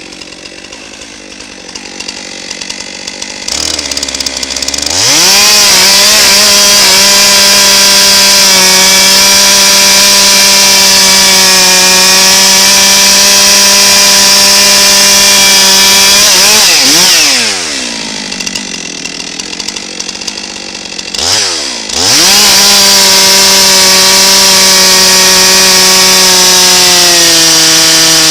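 Stihl chainsaw with a freshly sharpened chain bucking red oak. It runs slowly, revs up to full throttle about four seconds in and holds there through a long cut, drops back to idle around seventeen seconds, then revs up again about twenty-one seconds in for a second cut.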